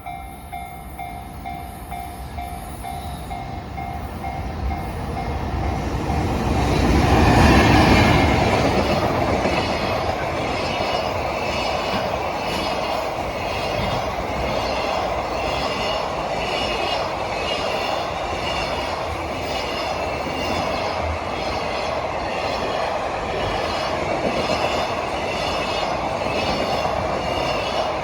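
A level-crossing warning bell ringing with a steady two-tone pulse, then a JR Freight EH500 electric locomotive passes, loudest about seven to eight seconds in. A long freight train follows, its wheels clattering in a regular rhythm over the rail joints.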